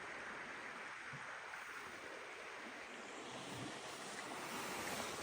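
Steady, even rushing outdoor noise with no distinct events, like wind or distant water.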